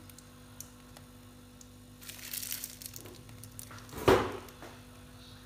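Plastic piping bag crinkling as it is squeezed to pipe whipped-cream rosettes, with a short knock about four seconds in, over a faint steady hum.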